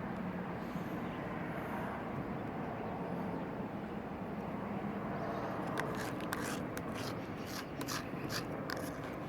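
A steady low rumble of background noise, then from about six seconds in a quick run of small clicks and scrapes: hand tools working the adhesive on a Surface Pro 3's display.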